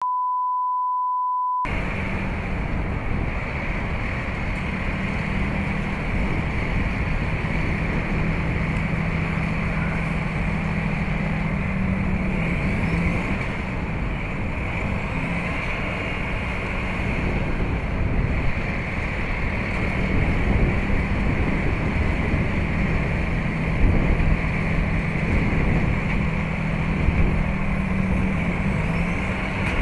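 A steady 1 kHz test tone for about a second and a half, then a continuous outdoor rushing noise of wind and storm, over a steady low engine hum from an idling utility bucket truck.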